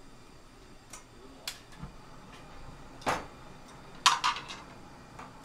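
Tableware clinking during a meal: a few sparse, sharp clicks and knocks, with the loudest, a quick cluster of three, about four seconds in.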